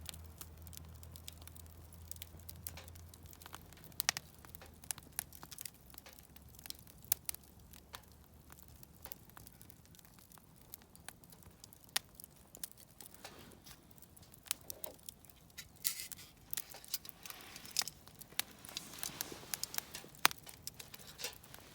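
Wood campfire crackling, with irregular sharp pops and snaps that get denser in the second half. A faint low hum fades out over the first several seconds.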